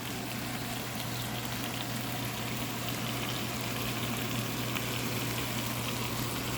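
Chicken pieces frying in a pan of peanut oil with ginger, garlic, onion, mushrooms and sausage, a steady sizzling and bubbling as the chicken is half-cooked.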